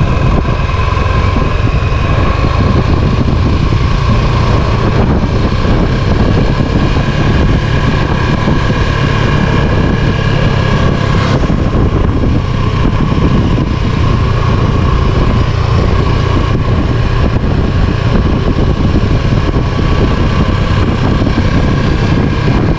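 A vehicle's engine running steadily while under way, with wind rumbling on the microphone.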